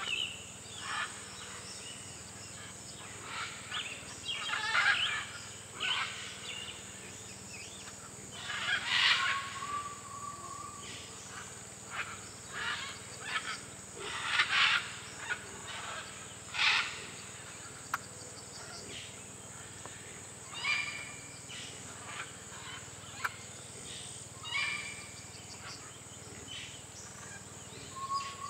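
A herd of white-lipped peccaries giving short harsh grunts and squeals at irregular intervals, a few of them loud, over a steady high insect drone.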